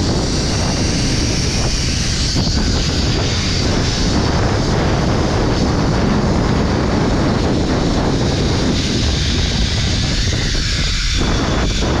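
Strong wind buffeting the microphone: a loud, steady low rumble with hiss.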